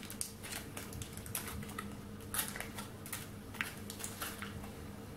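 Foil wrapper of a Carré Frais cheese square being peeled open by hand, crinkling in small, irregular crackles and clicks. A faint steady hum runs underneath.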